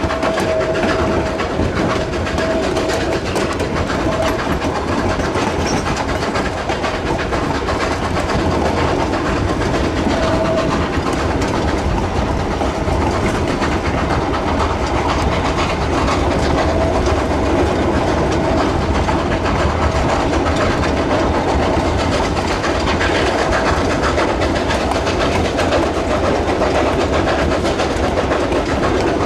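Narrow-gauge freight train behind a 2-8-2 steam locomotive, heard from an open wagon: steady rumble and clatter of steel wheels over the rails as the locomotive works ahead. A steady ringing note comes and goes several times.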